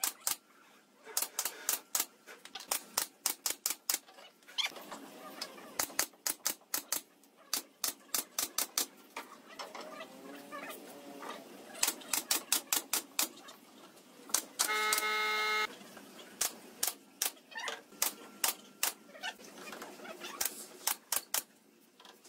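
Pneumatic nail gun firing nails into pine pallet boards, sharp shots coming in quick runs with pauses between them. About two-thirds through, a brief steady tone sounds for under a second.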